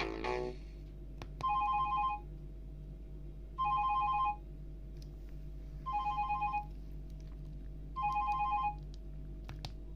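Alcatel OneTouch 2005D ringtone imitating a classic telephone ring, played through a Samsung Ch@t 357's speaker: four short two-tone trills about two seconds apart. The end of a previous melodic tone fades out in the first half second.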